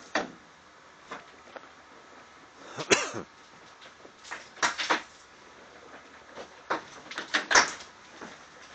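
Bricks from a brick chimney being taken down dropping onto the debris below: a string of irregular sharp knocks and clatters, the loudest about three seconds in and again near the end.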